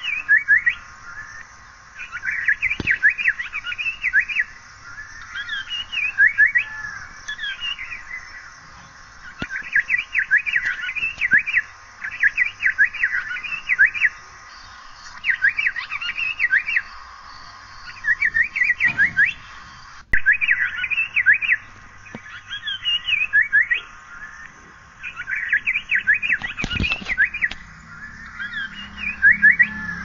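Asian paradise flycatcher calling: about ten short bursts of rapid, high, sharp notes, each burst lasting a second or so, with brief pauses between.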